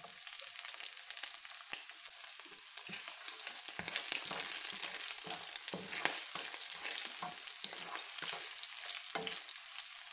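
Garlic, onion and spring onion sizzling in hot oil in a frying pan, stirred with a wooden spatula that knocks and scrapes against the pan. The sizzle grows louder about four seconds in.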